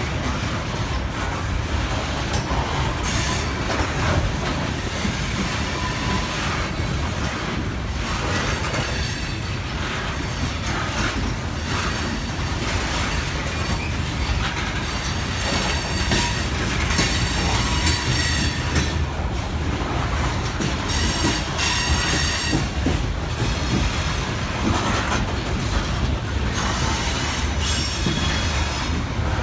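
Loaded coal hopper cars of a freight train rolling past on a curve, their steel wheels squealing against the rail over a continuous heavy rumble. The high-pitched squeal comes and goes and is strongest in the second half.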